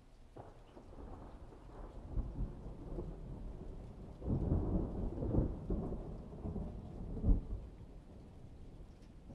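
Rolling thunder: a low rumble that builds over the first few seconds, is loudest with sharp cracking peaks from about four to seven and a half seconds in, then dies away.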